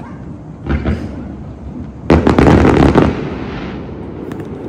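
Fireworks going off: a single bang under a second in, then a loud, rapid crackle of many pops about two seconds in that fades away.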